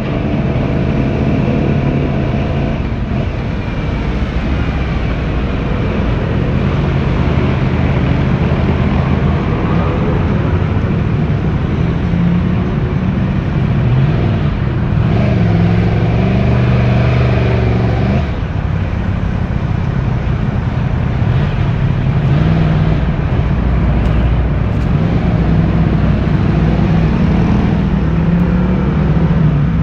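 Yamaha YZF-R1's 1,000 cc inline-four engine running through its stock exhaust while being ridden. The engine note rises and falls with repeated throttle changes, with a stronger rev-up a little past the middle.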